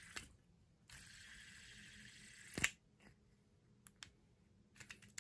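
Fidget spinner's bearing whirring with a steady hiss, cut off just after the start and spun up again about a second in, then stopped with a sharp click a little past halfway. Light plastic clicks follow as the spinner is handled.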